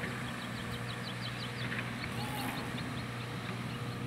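Steady low machine hum with a faint steady higher tone, over which a bird gives a quick run of high chirps, about six a second, then a few more about two seconds in.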